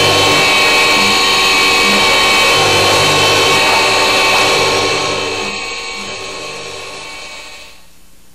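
CNC tool and cutter grinder running, its grinding wheel making a steady, high whine of several tones. The sound fades away over the last three seconds.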